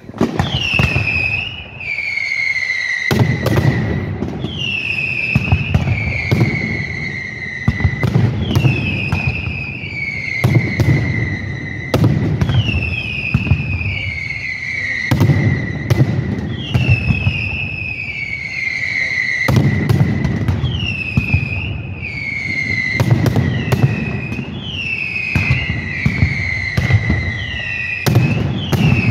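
Fireworks display: aerial shells firing about every two seconds, each with a sharp crack and a whistle falling in pitch, over low rumbling booms of the bursts.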